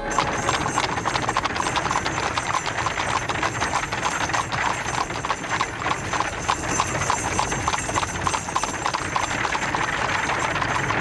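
Horse-drawn carriage on the move: a brisk, dense clip-clop of hooves over a steady rattle of the wheels.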